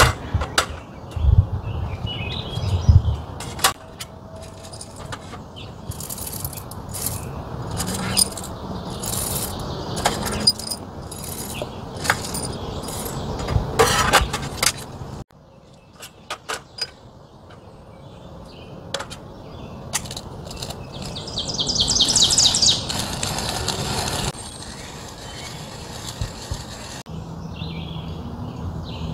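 Clicks and clinks of a hand coffee grinder's metal parts being handled, and coffee beans rattling as they are poured into its hopper, with birds chirping in the background.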